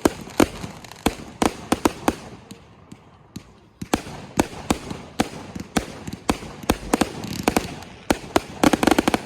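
Fireworks going off in a rapid, irregular run of sharp bangs, a few each second, thinning out briefly a few seconds in and ending in a fast cluster of bangs.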